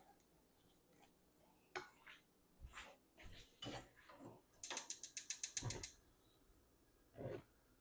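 Quiet kitchen handling: scattered light knocks and clatter, with a quick run of about a dozen ratchet-like clicks lasting just over a second midway.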